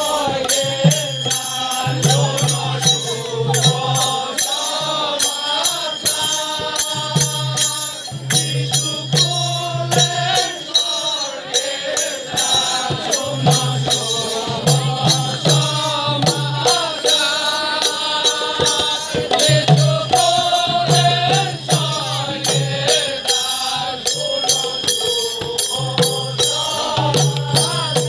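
A group singing a devotional kirtan chant, accompanied by hand-played double-headed barrel drums beating a repeating rhythm and a steady jingling metal percussion keeping time.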